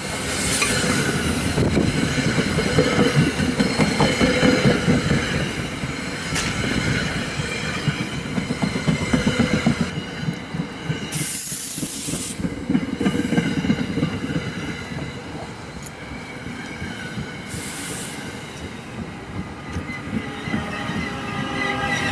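Passenger train passing at speed: wheels clattering rapidly over the rails under a steady rushing hiss, with a brief high-pitched squeal about eleven seconds in.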